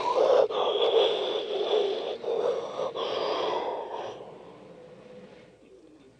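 Battery-powered toy train running on plastic track close to the microphone: its motor whirs and its wheels run noisily over the track. It is loud for about four seconds, then fades as the train moves away.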